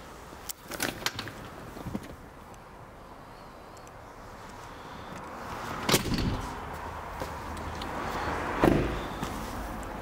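A few light clicks, then two heavy thumps about three seconds apart, the first the louder: a car door being shut and handled.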